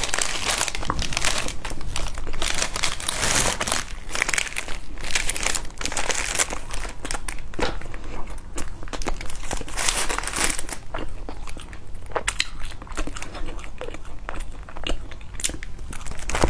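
Plastic bakery wrappers crinkling and rustling as bread is unwrapped and handled, dense at first and then thinning to scattered crackles, with bites into soft bread near the end.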